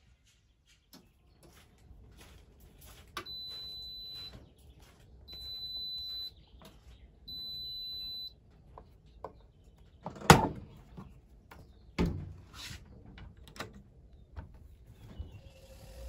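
ATLANT 45Y82 washing machine sounding its end-of-cycle signal: three long, high steady beeps, each about a second long. A few seconds later there are two loud clunks as the door latch is released and the door is pulled open, then the laundry rustles as it is handled.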